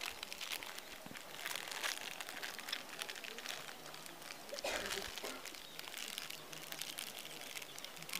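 Irregular rustling and crackling close to the microphone, many small clicks coming in clusters, over faint outdoor ambience.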